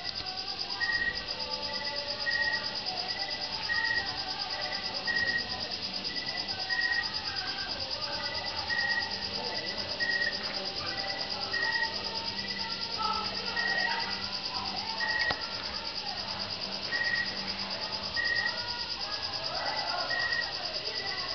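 Night insects: a steady, high, finely pulsing cricket trill, with shorter chirps repeating about once a second over it. Faint distant voices or music sit underneath.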